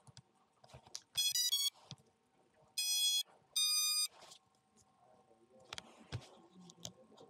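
Electronic beeps from a micro FPV drone's motors: a quick run of short tones stepping in pitch, then two longer steady beeps, much like an ESC start-up and arming tune. Faint clicks and rustles around them.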